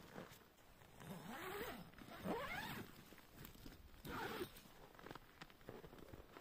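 Pug whining: a few rising-and-falling whines about a second in, then a shorter one about four seconds in.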